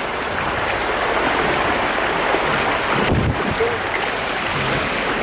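Steady rushing of a jungle creek's flowing water. A low thump about three seconds in.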